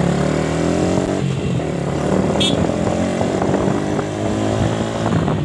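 Motorcycle engine running at low speed, its note rising and falling with the throttle.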